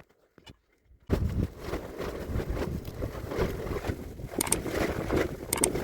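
Wind buffeting the microphone in strong, uneven gusts, starting suddenly about a second in after a near-quiet moment with a few faint clicks.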